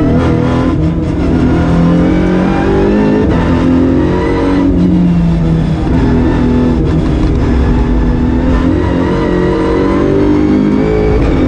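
VW Golf GTI TCR race car's turbocharged 2.0-litre four-cylinder heard from inside the stripped cabin at racing pace. The engine note climbs under acceleration and drops back several times as the driver shifts and lifts for corners.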